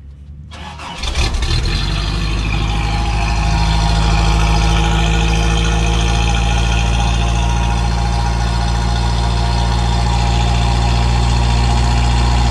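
Toyota SR5 pickup engine cold-started, heard at the tailpipe: a brief crank, the engine catches about a second in, and it settles into a steady idle that firms up slightly a few seconds later.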